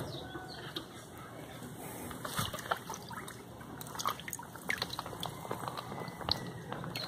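Shallow pond water sloshing and dripping as a plastic sieve scoops through it, with many small, scattered splashes and drips.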